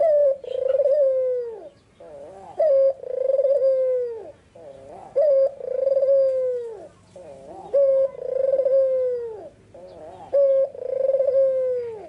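White red-eyed Barbary dove (puter) cooing. It repeats its phrase five times, about every two and a half seconds: a short note, then a long rolling coo that falls in pitch, with softer wavering notes between phrases.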